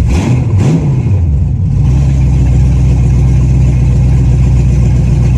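Swapped-in Chevy 5.3 LM7 V8 running, with a short rev that rises and falls back in the first second or two, then idling steadily.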